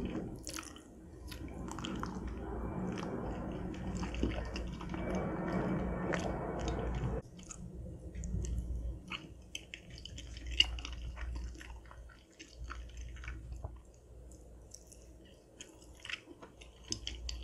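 Close-miked chewing of soft, cheesy macaroni and cheese: wet, squishy mouth sounds and small clicks, with a denser stretch that cuts off suddenly about seven seconds in and a single sharp click a few seconds later.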